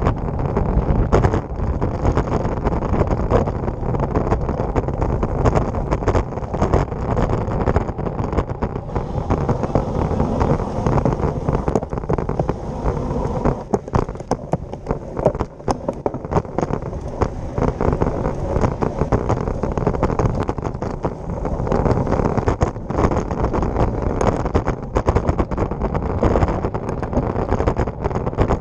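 Road bike rolling at speed, heard from a handlebar-mounted camera: a steady rumble of wind on the microphone and tyres on the concrete road, with frequent sharp rattles and knocks as the bike jolts over the road's joints and cracks.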